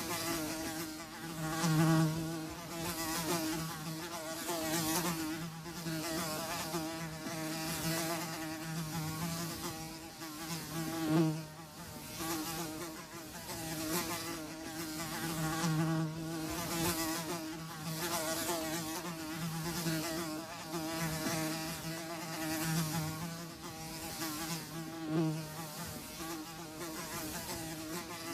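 Several flies buzzing continuously, the drone wavering in pitch and swelling and fading as they fly close and away.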